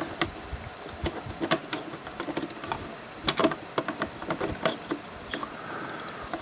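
Scattered light clicks and taps as small parts of an opened DVD player are handled and fitted back into place.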